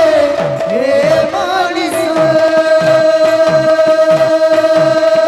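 Sambalpuri kirtan music: a hand drum beats a steady rhythm, each bass stroke dropping in pitch, about two and a half a second, with jingles and small cymbals ticking along. A sung line trails off in the first second or so, and a long steady note is then held through the rest.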